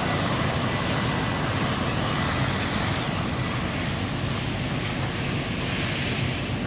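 Steady road traffic noise, an even rush without distinct events.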